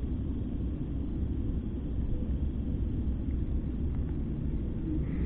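Steady low outdoor rumble, with a couple of faint clicks from the hands working a small ice-fishing rod and spinning reel.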